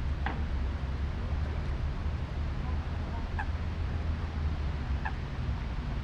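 Outdoor park ambience: a steady low rumble with three short bird calls, at the start, a little after three seconds and around five seconds.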